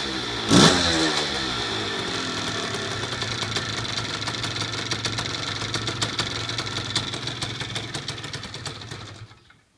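Puch motorcycle's two-stroke engine blipped once about half a second in, then running on at idle, its firing slowing and fading until it cuts out near the end.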